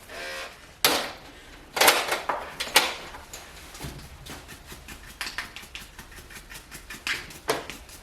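Knocks and clicks from a clipper blade and grooming tools being handled: three loud knocks in the first three seconds, then a run of lighter clicks.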